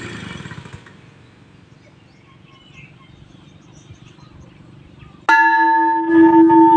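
A large bell or gong struck once about five seconds in, ringing on with a steady, pulsing hum. Before it, machine noise dies away within the first second.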